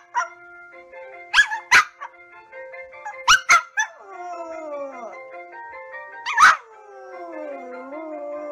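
A small white fluffy dog barking in about six sharp barks, some in quick pairs, then howling with a falling, wavering pitch, over steady background music.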